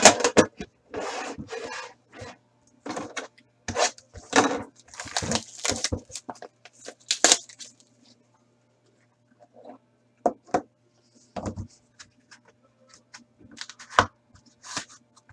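Hands handling a box of hockey trading cards: the cardboard lid and inner tray scraping and rubbing, and the pack and cards sliding out. There is a dense run of rustles and scrapes through the first half, then scattered light taps and clicks.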